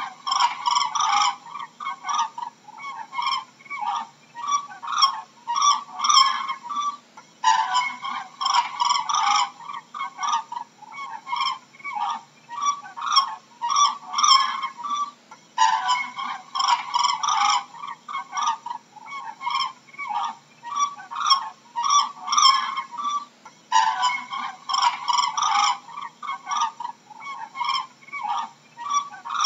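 Cranes calling: a run of separate honking calls, about one to two a second, the same sequence repeating about every eight seconds.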